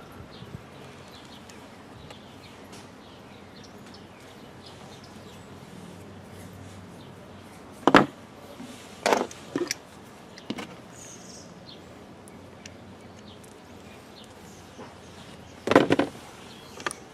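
A few sharp knocks and clatters, like parts being handled and set down: one about eight seconds in, two or three close together just after, and a louder cluster near the end, over a quiet background with faint high chirps.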